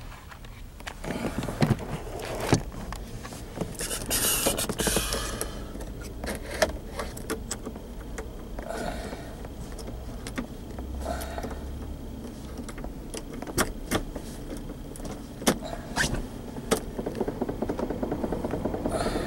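Scattered clicks, knocks and rustles from handling inside a car's cabin, with keys jangling, and no engine running.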